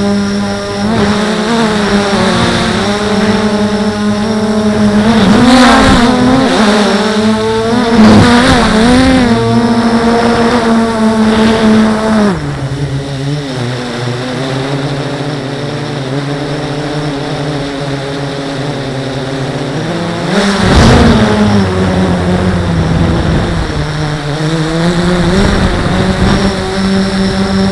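Blade 350 QX quadcopter's motors and propellers whirring as heard from the camera on board, the pitch wavering up and down with the throttle and dropping lower about twelve seconds in. A few brief louder rushes of noise come through, the loudest about eight and twenty-one seconds in.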